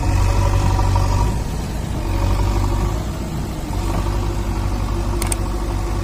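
JCB backhoe loader's diesel engine running under hydraulic load as the machine lifts itself on its front bucket and backhoe arm. The low engine throb is steady, and the engine note works harder in the first second or so and again from about four seconds in.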